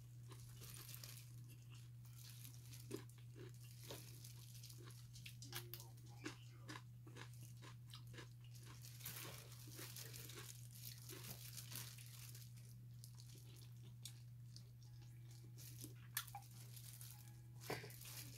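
Faint chewing and mouth sounds of a person eating rice and braised pork by hand. Scattered small crunches and clicks mix with the light crinkle of disposable plastic gloves, over a steady low hum.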